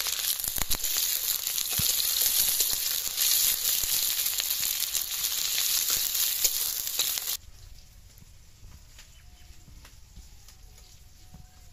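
Sliced onions and green and red chillies sizzling loudly in hot oil in an iron kadai, with a metal spatula scraping and clicking against the pan as they are stirred. The sizzle stops abruptly about seven seconds in, leaving only faint background sound.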